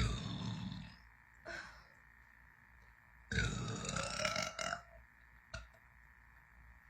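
A person burping: one burp lasting about a second at the start, a short one soon after, then a longer, drawn-out burp from about three seconds in that lasts about a second and a half, its pitch wavering.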